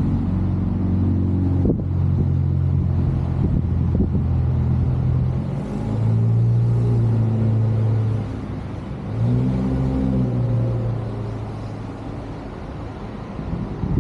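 A motor vehicle's engine running, its low hum shifting up and down in pitch a few times and easing off near the end, with a single sharp click early on.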